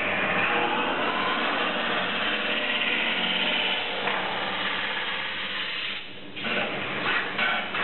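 Lathe running during metal spinning: the spinning tool pressing and rubbing against the turning sheet-metal blank gives a steady, loud grinding hiss. About six seconds in it drops away briefly, then comes back choppy, cutting in and out.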